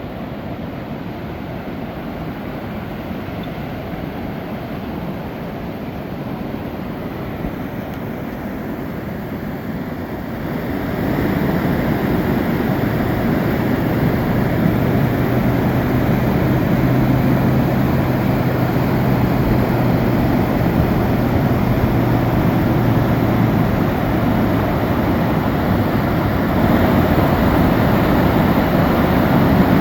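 Steady rush of water over the Coal River's Upper Falls, getting clearly louder about ten seconds in. A low steady hum sits under it for several seconds in the middle.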